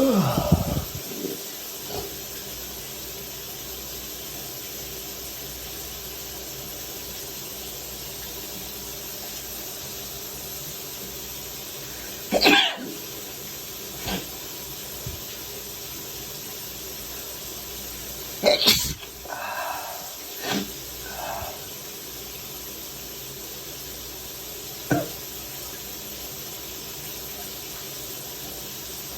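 Person congested with the flu sneezing, with sharp, wet sneezes about twelve and eighteen seconds in and a few shorter coughing sounds after the second. A steady hiss runs underneath.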